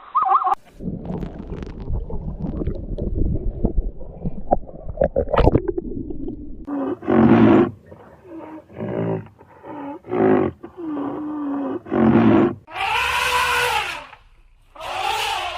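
An animal's vocalisations: about six seconds of low rumbling, then a run of short pitched calls each under a second, and two longer, higher calls near the end.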